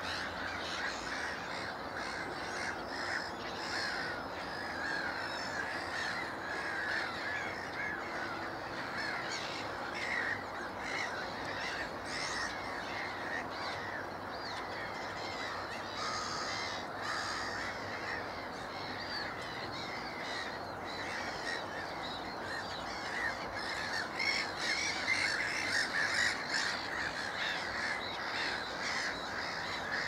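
Wild birds calling on and off, with some harsh calls, over a steady hiss of rain.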